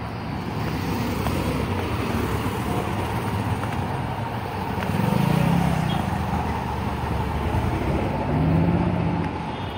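Road traffic: a steady rush of passing cars, with vehicles going by more loudly about five seconds in and again near the end.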